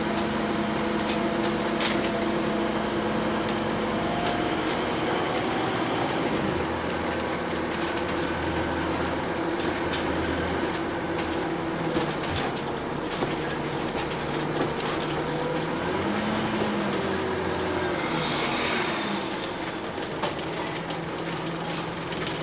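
Cabin sound inside a Scania OmniCity double-decker bus on the move: the diesel engine's drone, its pitch rising and falling as the bus speeds up and slows, with frequent small rattles and clicks from the body and fittings. A short hiss swells up about three-quarters of the way through.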